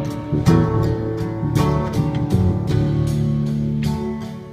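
Live band music with an acoustic guitar strummed in chords over steady low notes.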